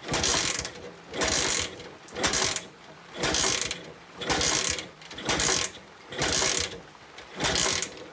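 A metal tool scraping at the filler of a motorcycle's steel fuel tank, worked in steady strokes about once a second, nine times.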